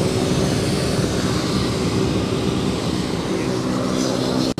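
Boeing B-17's four Wright R-1820 radial engines running as the bomber taxis close by: a steady, even propeller drone with several tones at once. The sound drops out for an instant near the end.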